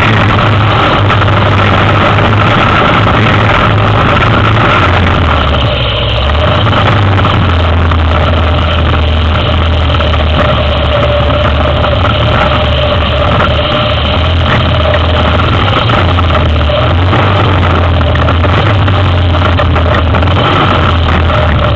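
Yamaha Big Bear 400 ATV's single-cylinder four-stroke engine running steadily at low speed as the quad wades through a rocky stream, with water churning around it.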